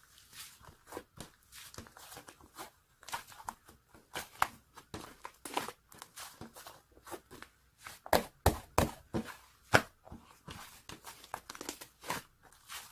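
Hands squeezing and pressing fluffy white slime, making irregular crackling pops and squishes, with a few louder pops between about eight and ten seconds in.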